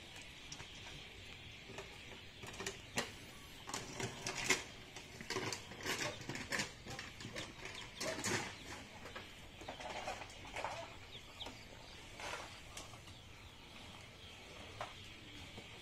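Faint outdoor rural ambience: a steady high hiss with scattered animal or bird calls and irregular light knocks and clicks, busiest in the middle of the stretch.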